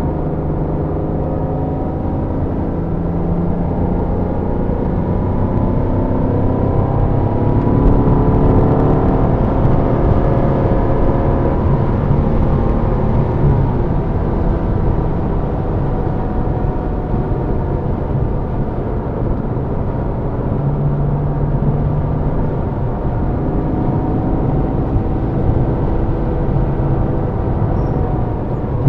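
Porsche Boxster's flat-six engine heard from inside the car at speed on a race track, the revs climbing through the gears and dropping back for corners, over steady road and tyre rumble.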